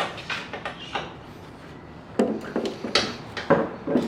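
Hand tools clinking and knocking on metal, irregular and unpitched: a few light taps at first, a quieter stretch, then a cluster of knocks and clatter from about two seconds in.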